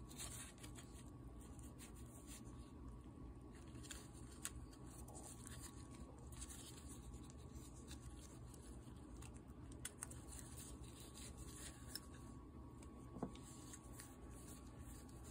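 Faint scraping and rubbing of small metal parts being handled, with a few light clicks, as piston rings are worked off a chainsaw piston, over a steady low hum.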